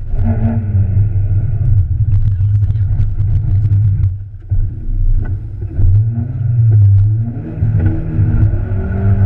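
Peugeot 206 rally car's engine heard from inside the cabin at speed: the revs fall just after the start, the engine note drops briefly about four seconds in as the driver lifts, then the revs climb again near the end.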